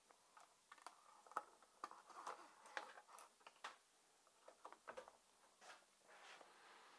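Faint, irregular small clicks and taps, with soft rustles about two seconds in and again near six seconds: a new brake cable and small parts of a mini dirt bike being handled and fed along the frame.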